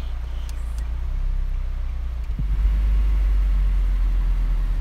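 Car engine running with a steady low rumble, heard from inside the car. It gets louder about halfway through, as the car pulls forward.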